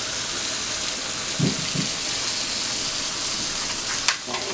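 Sausage patties sizzling in a frying pan, a steady hiss, with a single sharp tap near the end.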